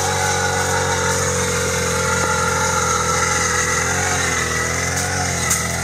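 Small engine of a power ice auger running steadily while it drills a hole through the lake ice, its pitch wavering slightly as the load changes.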